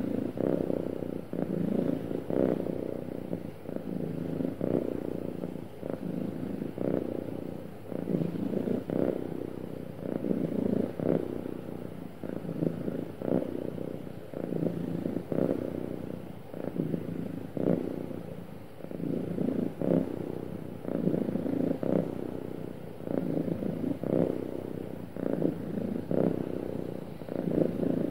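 Domestic cat purring steadily and close up, the purr swelling and easing with each breath about every two seconds.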